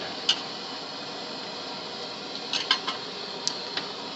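A few sharp clinks of metal utensils against cookware and dishes: one near the start, a quick cluster past halfway and two more near the end, over a steady hiss.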